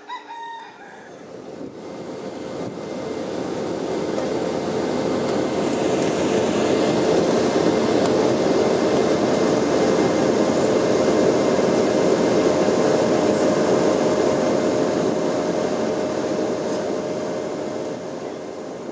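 Steady drone of aircraft engines and rushing air inside the cabin of a plane in flight. It swells over the first few seconds, then holds at an even level.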